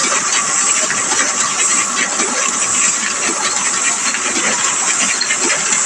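Gestetner 211 offset printing press running steadily on automatic: a dense, fast mechanical clatter over a hiss as it feeds and prints sheets.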